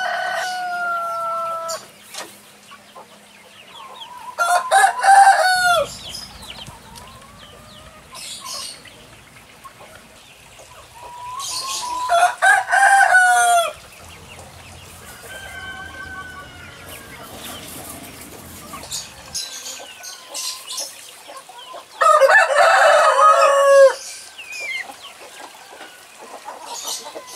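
Roosters crowing one after another. Four loud crows come roughly every six to ten seconds, with fainter crowing between them.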